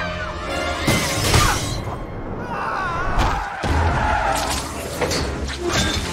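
Action-film soundtrack: orchestral score under glass shattering and heavy thuds, with the loudest crash about a second in.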